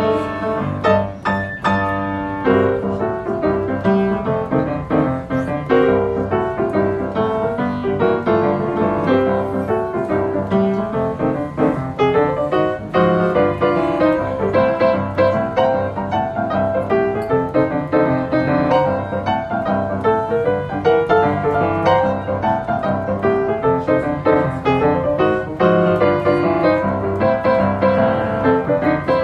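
Boogie-woogie played live on an acoustic upright piano, with fast, continuous, densely packed notes.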